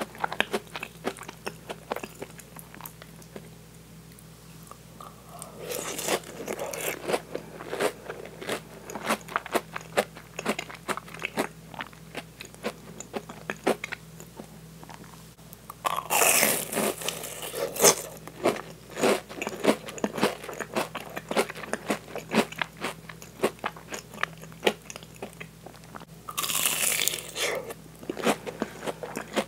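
Close-miked eating sounds: chewing of meat sauce spaghetti with many sharp, wet mouth clicks, broken by three louder, noisier spells. The last of these, near the end, is a crunchy bite into the breaded crust of a crab cream croquette.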